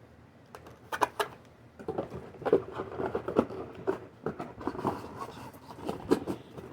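An Arcadia reptile clamp lamp and its parts being handled: a series of light clicks, taps and rattles, irregular and spread through the whole stretch.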